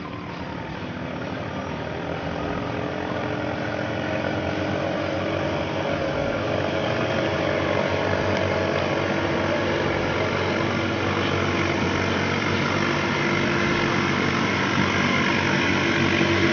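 Katinting longtail boat engine running steadily at speed, growing louder over the first several seconds and then holding at a high level.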